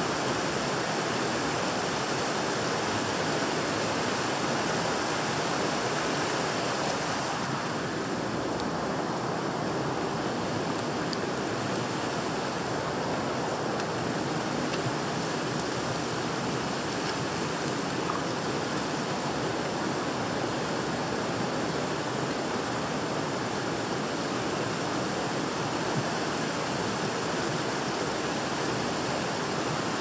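Steady rushing of creek water flowing into and through a culvert.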